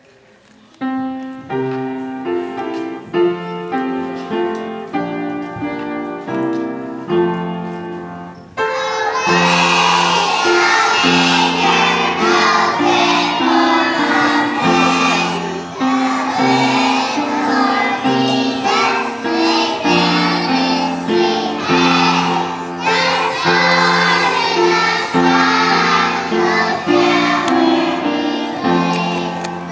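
A group of preschool children singing a song together with accompaniment. The first eight seconds or so are an instrumental introduction; then the children's voices come in, much louder.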